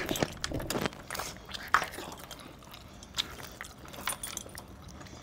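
Cooked chicken being pulled apart by hand and chewed: scattered wet, smacking clicks and small snaps, with one sharper click about a second and a half in.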